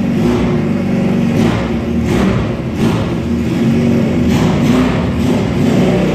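A motorcycle engine running steadily, with a few brief surges in level.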